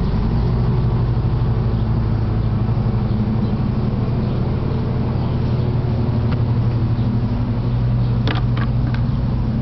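A machine running with a steady low mechanical hum, with a few short clicks about eight seconds in.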